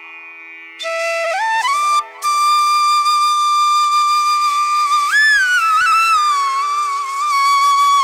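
Background instrumental music: a melody of long held notes with slides between them over a steady drone, coming in about a second in.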